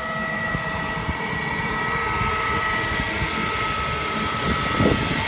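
Draft inducer motor of a Voyager gas package unit running steadily on a call for heat, a continuous mechanical hum with a steady high whine.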